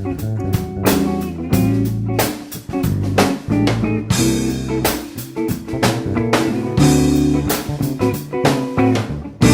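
Background music: a band with guitar and drum kit playing a steady beat.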